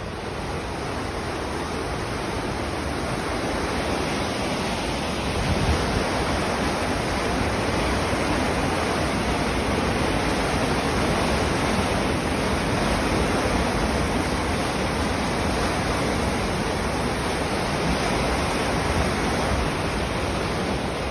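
Steady rush of falling water through the open canal lock gates and waterfall, growing a little louder over the first few seconds.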